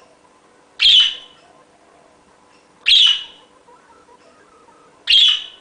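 Budgerigar giving three short, loud, high-pitched calls, about two seconds apart.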